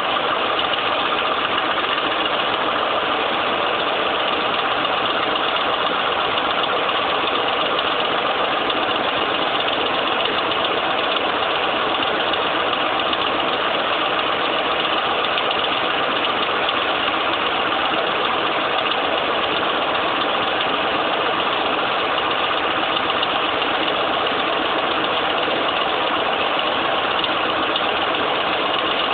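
A 2006 Ford F-150's 5.4 V8 running steadily with a ticking, clattering diesel-like noise. The owner suspects the variable cam timing (VCT) solenoids.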